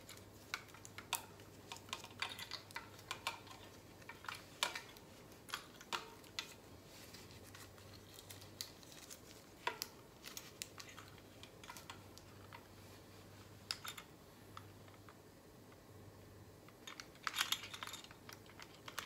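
Faint, scattered clicks and taps of hands handling a carbon road-bike wheel at its spokes and rim while fitting a small protective piece, with a denser run of clicks near the end as a digital hanging scale is brought up. A faint low hum lies underneath.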